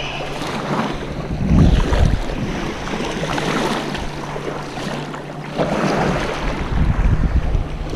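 Wind buffeting the microphone over the wash of shallow surf, with louder gusts about a second and a half in and again around six seconds.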